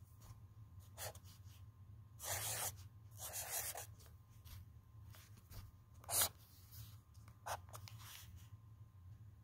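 Felt-tip marker writing on a paper notepad: short scratchy strokes, the two longest about two to four seconds in, and a sharper, louder stroke about six seconds in. A low steady hum runs underneath.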